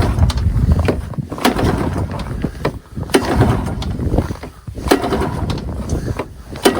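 1992 Polaris 350L ATV engine running cold on choke just after catching on the pull start, at −10 °F, with a few sharp knocks over it.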